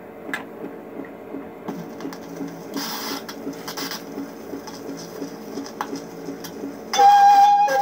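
Fisher-Price 825 toy record player running, its turntable mechanism making a steady rhythmic mechanical ticking while the needle rides the record with some surface hiss. About seven seconds in, music from the record starts, much louder, through the player's small speaker.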